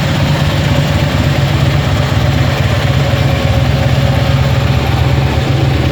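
Motorcycle engine idling steadily, with an even, fast low pulse.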